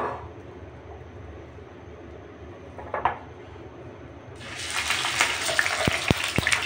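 Chicken patty dropped into hot cooking oil in a nonstick frying pan: a sudden loud sizzle starts about four seconds in and keeps going with sharp crackling pops as the patty fries.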